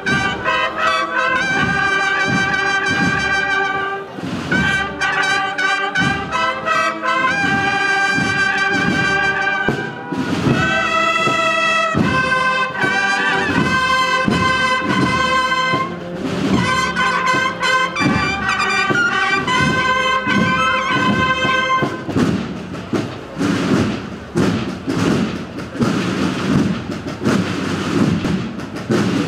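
Brass band playing a slow processional march, trumpets and trombones over a steady drum beat. About three quarters of the way through the brass stops, leaving the drum beat over a steady hiss.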